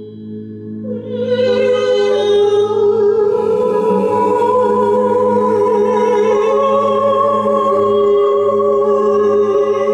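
A man and a woman singing long, held wordless tones into microphones over a steady low drone. The voices swell in about a second in and sustain with slow shifts in pitch.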